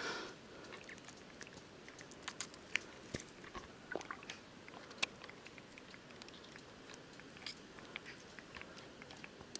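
Faint water drips and small splashes with scattered light clicks as a gill net is hauled in by hand through shallow water.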